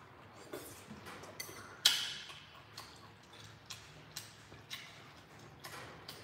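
Close eating sounds: chewing and wet mouth clicks, with chopsticks knocking against a ceramic soup bowl. One louder sharp clack comes a little under two seconds in.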